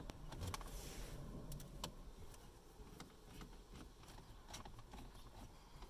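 A few faint, scattered clicks and ticks of a hand screwdriver backing out the 7 mm screws that hold a truck's factory stereo in the dash.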